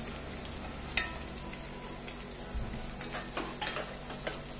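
Chopped onions sizzling steadily in hot mustard oil in a kadai, stirred now and then, with a sharp tap about a second in and a few softer knocks later.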